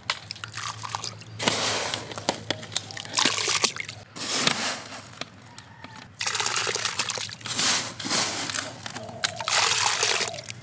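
Coconut milk sloshing and splashing in a steel bowl as crumbled jaggery is stirred into it with a spoon, in irregular bursts.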